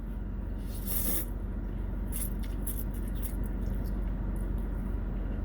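A person eating pho: a short slurp about a second in, then scattered faint mouth and utensil clicks over a steady low hum.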